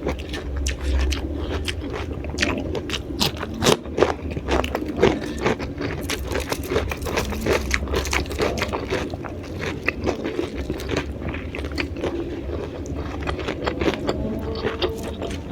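Close-up chewing and crunching of raw vegetables: many irregular crisp crunches over a steady low hum.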